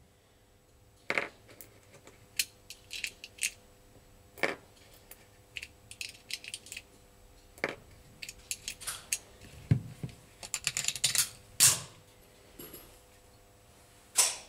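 Irregular small clicks, taps and light metallic rattles of close-up handling, with a quick flurry of clicks about ten to eleven seconds in.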